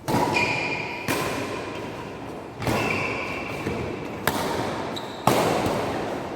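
Badminton rally: rackets striking the shuttlecock five times, about one to one and a half seconds apart, each sharp hit ringing on in the hall's echo.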